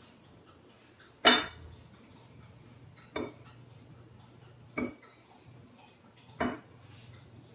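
Whole radishes set down one at a time on a ceramic plate: four short knocks about one and a half seconds apart, the first the loudest.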